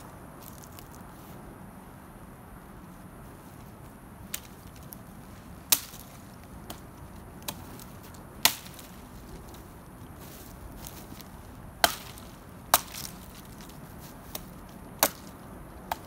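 Hatchet chopping a felled pine branch: sharp single strikes at irregular intervals, starting about four seconds in, with about five hard blows and a few lighter taps between them.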